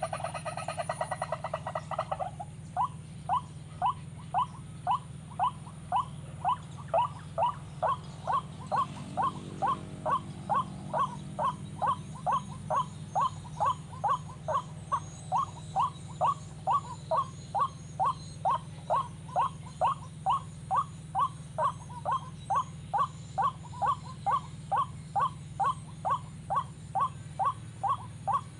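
White-breasted waterhen calls repeated about twice a second, each a short rising note, after a rapid chatter in the first two seconds: the waterhen lure call used to draw the birds to a snare.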